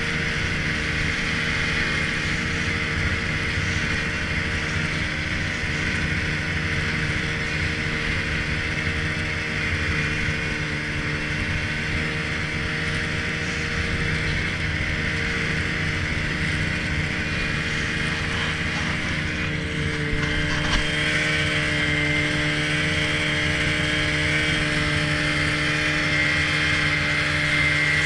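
Snowmobile engine running steadily as the sled travels over the snow. About twenty seconds in, its tone shifts and it gets slightly louder.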